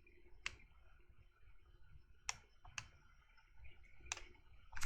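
Sharp mouse and keyboard clicks from a computer being worked, about half a dozen at uneven intervals, faint over quiet room tone.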